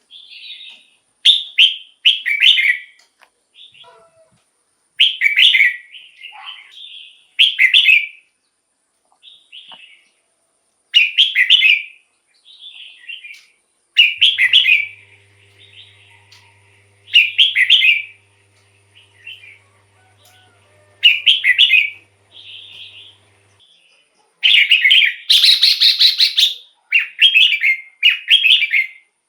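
Red-whiskered bulbul singing: short, loud, whistled phrases repeated every two to three seconds. A harsher, buzzy call comes near the end.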